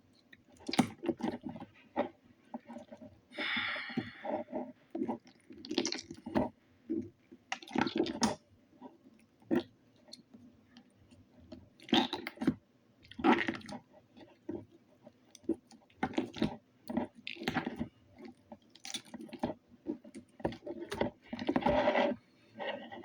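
Slime squelching in irregular bursts as it is squeezed and pressed into a plastic container.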